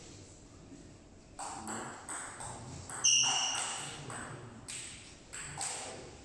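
Table tennis rally: the celluloid-type ball clicks in quick alternation off the bats and the table, about two to three hits a second, with room echo. A short high squeak about three seconds in is the loudest sound.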